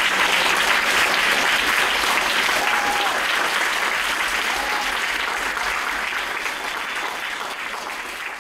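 Audience and panelists applauding, a dense clapping that slowly dies down toward the end.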